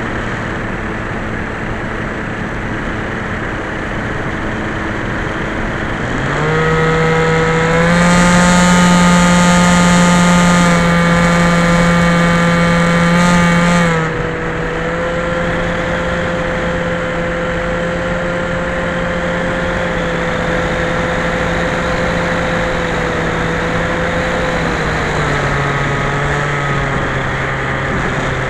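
Skyhunter FPV model plane's electric motor and propeller running steadily with rushing air. The motor speeds up about six seconds in and is at its loudest with an added hiss for several seconds, then throttles back about halfway through and slows again near the end.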